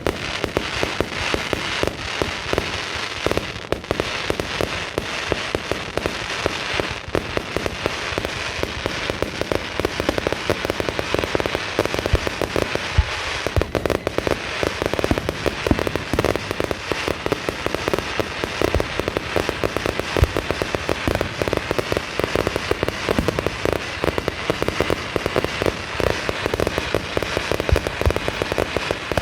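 Fireworks display: a dense, continuous barrage of bangs and crackling, many reports a second.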